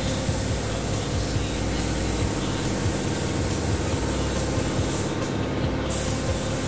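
Steady drone of workshop machinery, with the hiss of a compressed-air spray gun over it. The hiss breaks off for nearly a second about five seconds in.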